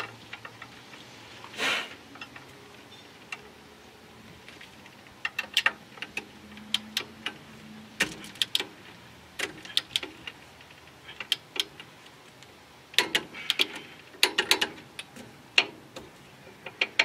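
A hand wrench ratcheting in short runs of clicks with pauses between strokes, as bolts on a disc-brake caliper bracket are tightened onto a front spindle. A few metal tool clinks come between the runs.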